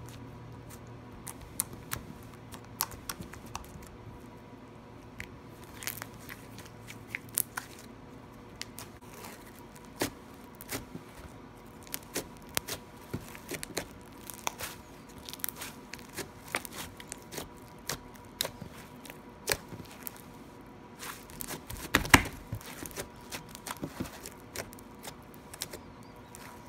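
Slime being squeezed, poked and stretched by hand, giving irregular sharp little pops and clicks, with a louder run of pops about 22 seconds in.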